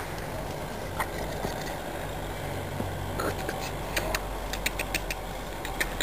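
A steady low engine hum, like a motor idling, with scattered light clicks and taps over it.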